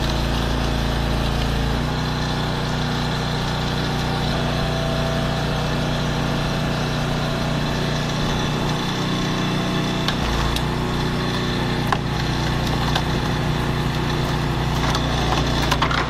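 Small 6.5 horsepower gasoline engine running steadily, driving a 22-ton hydraulic log splitter through a large log round. The engine note shifts about two seconds in and again about ten seconds in. The wood cracks and splinters, with sharp snaps about twelve seconds in and near the end.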